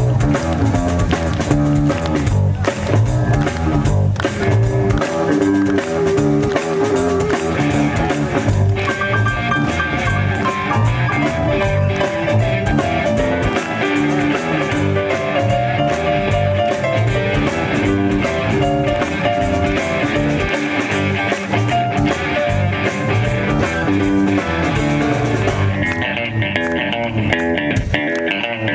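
Live country-rock band playing at full volume: electric guitar carrying held melody notes over bass and a drum kit keeping a steady beat.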